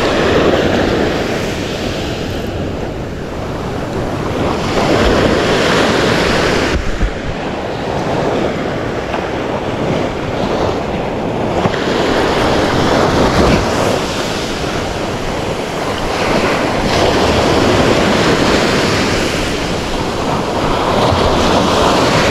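Sea waves breaking and washing on the shore, the surf noise swelling and fading every few seconds, with wind rumbling on the microphone.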